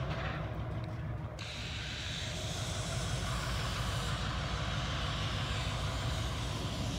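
Diesel switcher locomotive's engine running at idle, a steady low rumble, with a steady rushing hiss joining about a second and a half in.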